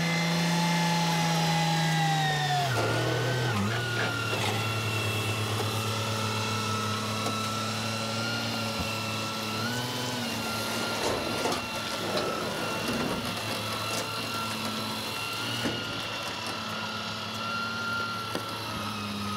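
A motor running steadily with a droning hum that drops a step in pitch about three seconds in, with some scattered clattering in the middle.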